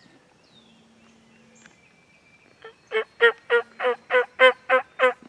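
Turkey yelping: a loud run of about eight evenly spaced yelps, roughly three a second, starting a little past halfway in.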